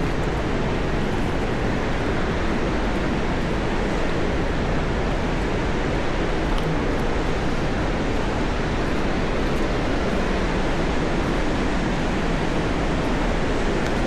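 Steady, loud rushing roar of the Jinsha River's rapids churning through the gorge, an even unbroken noise with no distinct events.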